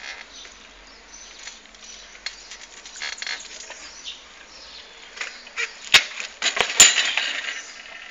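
A BMX bike knocking on asphalt: three sharp knocks close together about six seconds in, over a steady hiss.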